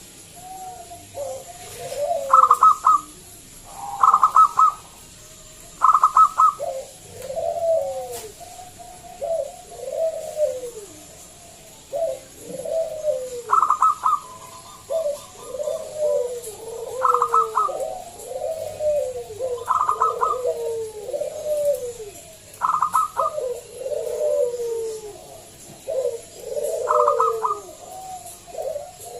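Zebra dove (perkutut) calling over and over. Each phrase opens with a quick stutter of loud, higher notes and runs on into a string of short falling coos.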